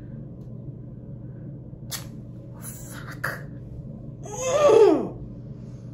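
A woman's loud cry of pain, falling in pitch, about four and a half seconds in, as a facial wax strip is ripped off her upper lip. A few short, sharp noises come before it, around two to three seconds in.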